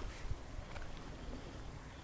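Footsteps walking on a concrete path, a faint step about every three-quarters of a second, with wind rumbling on the microphone.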